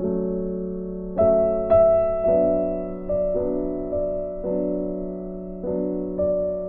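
Background music: slow, gentle piano or electric-piano chords, a new note or chord struck every half second to a second and left to ring.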